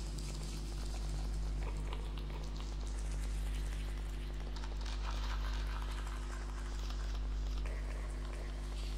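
A low, steady ominous drone of several held tones, with a faint, irregular crackling patter above it: horror-film ambient sound design.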